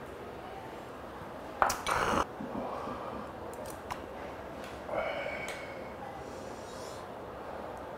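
A man's loud, breathy exhale for about half a second after knocking back a shot of soju, then a metal ladle clinking with a short ring as soup is ladled into a small metal cup.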